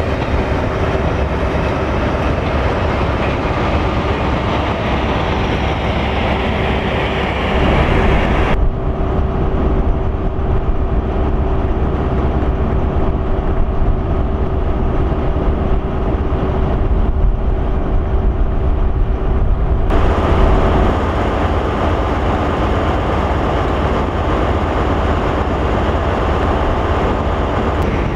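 HST Class 43 diesel power cars running past with a measurement train, engines and wheels on the rails making a steady rumble. A steady whine runs through the first two-thirds, and the hiss drops out abruptly about a third of the way in, returning about two-thirds of the way in.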